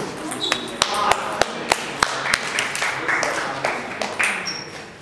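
Celluloid-type table tennis ball bouncing, a run of quick light clicks about three a second over the first two seconds, as the ball is brought back between points; voices in the hall follow.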